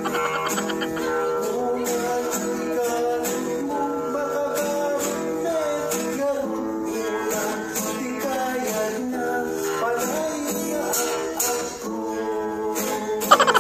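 A man singing an Ilocano song while strumming chords on an acoustic guitar, with one hard strum near the end.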